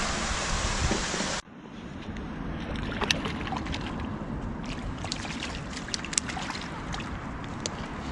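A steady rushing noise that cuts off abruptly about a second and a half in, followed by quieter riverside ambience with scattered light clicks and ticks as a fishing lure is cast and retrieved.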